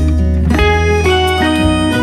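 Background music led by plucked guitar over a bass line, the notes changing every half second or so.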